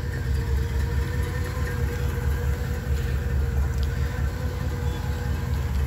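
1962 Chevrolet Impala's engine idling steadily as it warms up, a low, even rumble.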